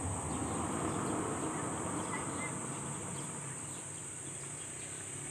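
Steady high-pitched insect chirring, like crickets, over a low even background hiss.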